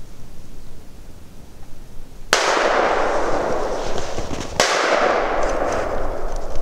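Two sudden crashing hits about two seconds apart. Each is followed by a long, steady wash of hissing noise that carries on until the next hit.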